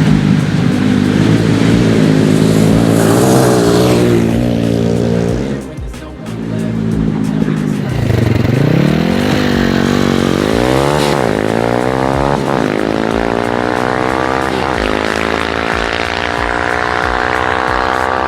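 Orion 140cc four-stroke single-cylinder pit bike engine revving. It drops off briefly about six seconds in, then climbs in pitch from about eight seconds. It falls back twice and then rises steadily in a long pull.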